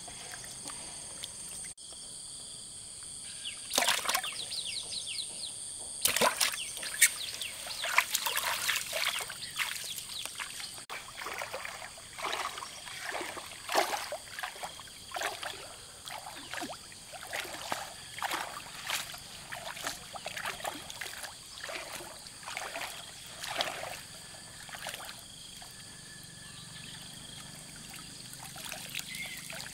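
Lake water splashing and sloshing in quick, irregular bursts, starting about four seconds in and thinning out near the end.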